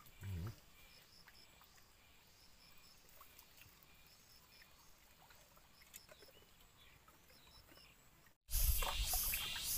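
Quiet outdoor ambience with faint high peeps in groups of three, repeating about once a second, and a brief low thump just after the start. Near the end the sound cuts abruptly to a loud rushing hiss that pulses at an uneven rhythm.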